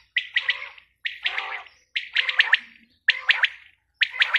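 Female quail calling: a quick burst of several sharp notes, repeated about once a second.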